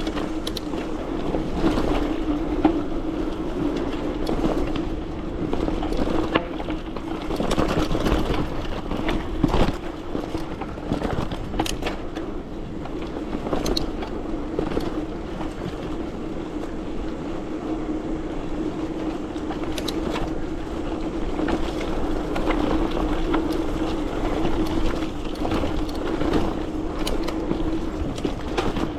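Bike riding along a trail: a steady hum under rolling noise, with scattered rattles and knocks as it goes over bumps.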